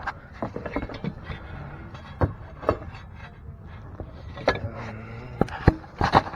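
Irregular clicks, knocks and light scrapes of hands working at the bulb's retaining clip and the plastic parts behind a car headlight. A few sharper clicks come near the end.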